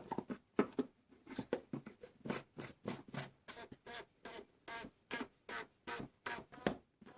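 Rubber O-rings on a plastic oil filter housing cap squeaking and scraping against the housing as the cap and filter are pushed and twisted in, a quick uneven run of short squeaks.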